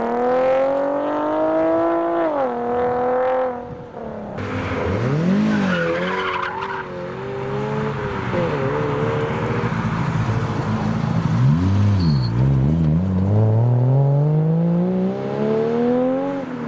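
Modified Japanese sports cars pulling away one after another, each engine revving up, dropping back as the throttle lifts or a gear changes, then rising again. The first is a Nissan Z climbing in pitch over the first few seconds, and the last rises steadily until it drops away near the end.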